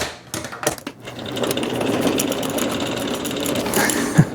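Hand-cranked honey extractor spinning, its gears running with a fast, even clatter that builds from about a second in, after a few knocks as it is closed up. One loud thump near the end.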